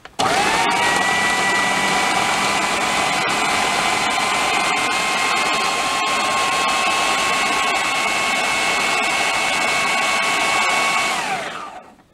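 Kenwood food processor running, blending pickled tomatoes to a pulp: its motor whine rises quickly as it starts, holds steady for about eleven seconds, then falls away as it winds down near the end.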